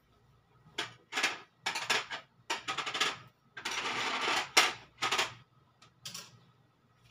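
Stack of thin gold bangles clinking against each other as they are turned in the hand, in a string of short jingles over about five seconds, the longest a little before the end.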